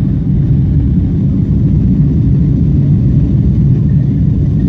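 Steady low rumble of a Boeing 777-300's jet engines and airflow, heard inside the passenger cabin as the airliner climbs after takeoff.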